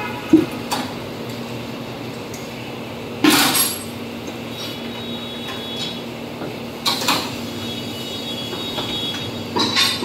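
Metal tools knocking and clinking during motorcycle tyre fitting: four separate sharp knocks, near the start, about a third in, about two-thirds in and near the end, over a steady low hum.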